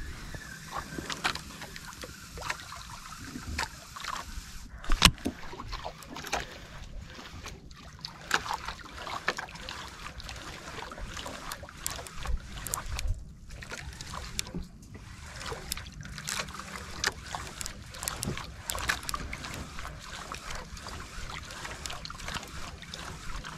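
Water sloshing and slapping against the hull of a small outrigger boat drifting at sea, with many scattered small knocks and clicks and one sharper knock about five seconds in.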